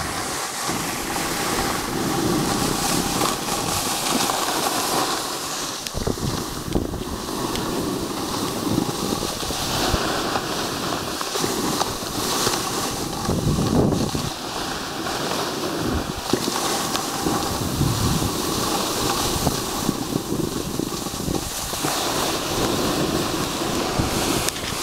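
Wind rushing and buffeting over the camera microphone while snowboarding downhill, mixed with the hiss of the board sliding and scraping across snow. The rush swells and eases unevenly as the rider turns.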